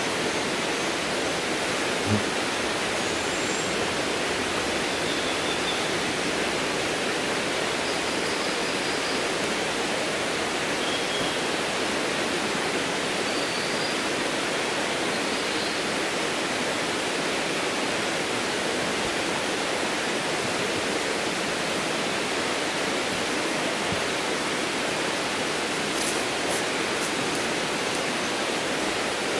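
Steady rush of running water from a stream, with a few faint short high chirps over it and a small click about two seconds in.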